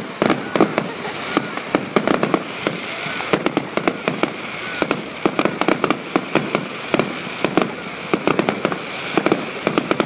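Fireworks display in a continuous barrage: rapid bangs and crackling reports, several a second, with no let-up.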